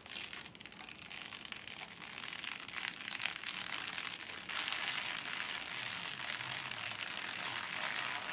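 Clear protective plastic film being peeled off a PC case's window side panel, crinkling and crackling, louder from about halfway through.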